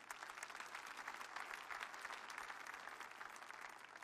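Large church congregation applauding: many hands clapping at once, swelling quickly at the start and fading near the end.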